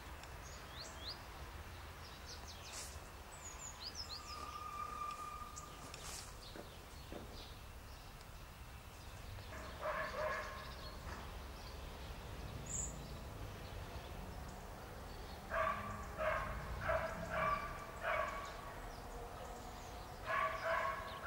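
A dog barking: a couple of barks about ten seconds in, a run of about five barks a few seconds later and a few more near the end. Small birds chirp in the first few seconds over a steady outdoor rumble.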